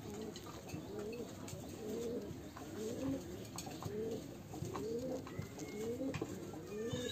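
Domestic pigeon cooing: a run of low rising-and-falling coos repeated about twice a second, starting about a second in.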